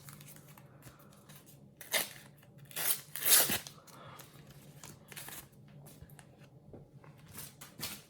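Foil sticker packet being torn open and crinkled in a few short rips, the loudest about three seconds in.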